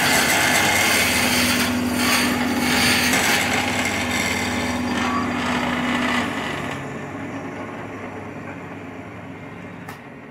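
Wood lathe running with a turning tool cutting the spinning wood: a steady motor hum under the hiss of the cut. About six seconds in, the hum stops and the sound fades away, with a single sharp click near the end.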